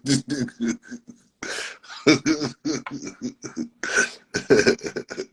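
A man's voice making short, choppy wordless mouth sounds, beatbox-like, with throat-clearing and cough-like bursts.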